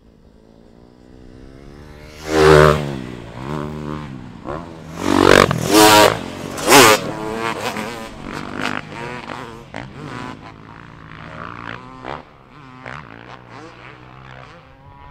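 Several dirt bikes revving hard over jumps, engine pitch rising and falling. The loudest bursts come a couple of seconds in and again around the middle, then the bikes fade away.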